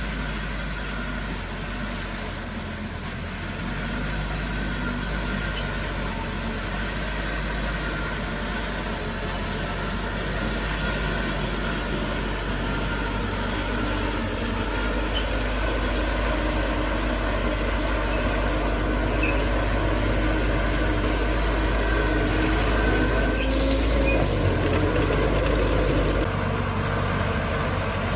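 Heavy diesel earthmoving machinery running steadily with a deep low rumble, growing gradually louder and shifting in tone about two seconds before the end.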